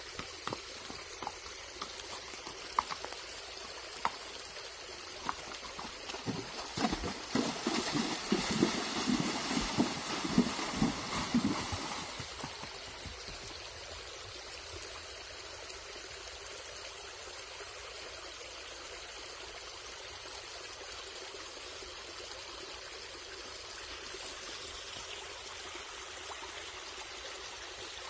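Missouri Fox Trotter mare's hooves striking rock and splashing through a shallow creek. The splashing grows louder with heavy thuds from about six seconds in and stops about twelve seconds in, leaving the creek's steady trickle.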